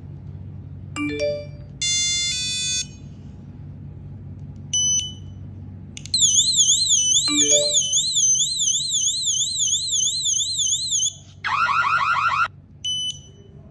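Tuya Wi-Fi PIR motion detector's built-in alarm: a few short electronic chimes and beeps, then a warbling siren sweeping up and down about two and a half times a second for about five seconds. After that comes a second of fast chirping and a final short beep.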